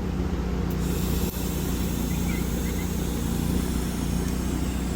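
Steady low hum of an engine running, joined about a second in by a steady hiss.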